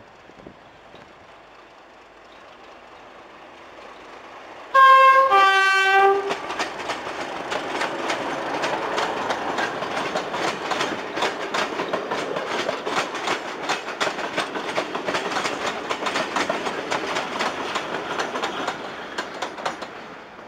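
Class 31 diesel locomotives approaching and sounding their two-tone horn about five seconds in: a short higher note, then a longer lower one. A train of coaches then passes with a steady rhythmic clickety-clack of wheels over the rail joints, fading near the end.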